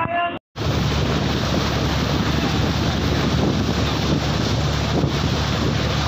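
Boat engine running steadily under strong wind noise on the microphone, with the rush of the sea. It begins abruptly about half a second in.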